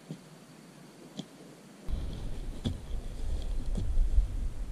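Digging bar jabbed into soil: sharp strikes about once a second from about two seconds in, over a steady low rumble, with a couple of faint clicks before.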